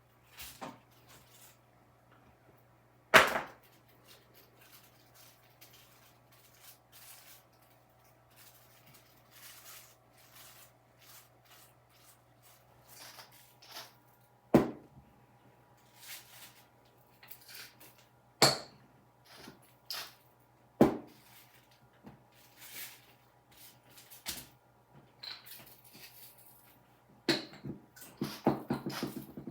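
Scattered knocks and clicks of kitchen utensils and a pan being handled, the loudest about three seconds in, with a quick run of rattling clicks near the end, over a steady low hum.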